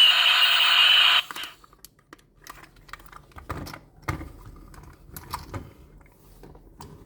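A loud electronic sound with rising tones cuts off suddenly about a second in. It is followed by scattered light clicks and taps of small toy vehicles being handled.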